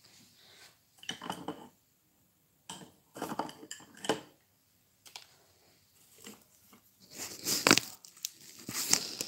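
Irregular bursts of rustling and light clicking and clattering from small objects being handled, loudest near the end.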